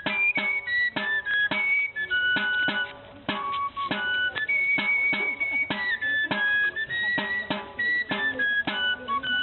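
Background music: a high melody of held notes over a steady percussive beat, easing off briefly about two seconds in.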